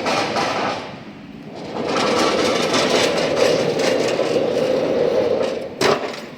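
CNC plasma table gantry travelling on its rails during a run test, with its guards rattling and clattering as it moves; the rattle comes from the guards, not the drive. The noise drops briefly about a second in, then runs steadily again, and there is a sharp clatter near the end.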